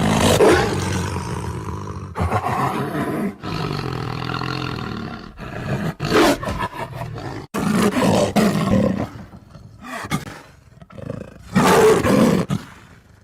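Tiger roaring and growling: a string of separate roars with short breaks between them, the loudest near the start and again near the end.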